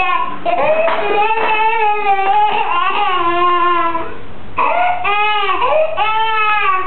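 A toddler's long, high-pitched, wavering cries, each drawn out over a second or more, with a short break a little past halfway.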